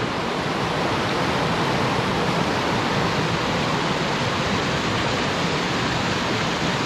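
Steady rush of water spilling over a weir and churning just below it, an even unbroken noise.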